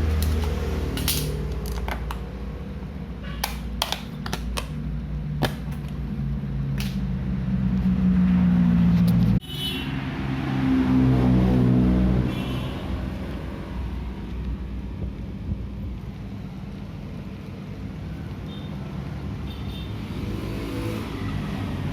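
A motor engine running and growing louder twice near the middle of the stretch, as if passing close by, with scattered sharp clicks and knocks in the first several seconds.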